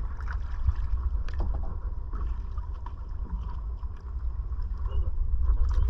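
Wind rumbling on the microphone over water lapping against a small outrigger canoe.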